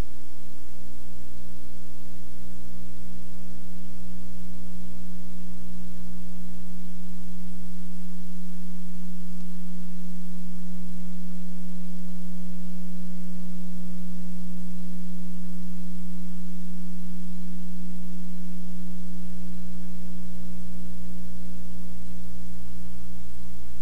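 Steady electrical hum made of a strong low tone with a deeper rumble and fainter overtones, unchanging throughout. This is the audio-line hum of blank videotape playing back with no programme sound recorded.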